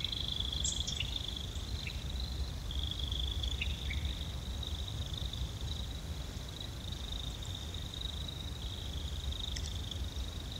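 A steady, high-pitched chorus of insects droning without a break, over a low rumble, with a few faint short chirps scattered through it.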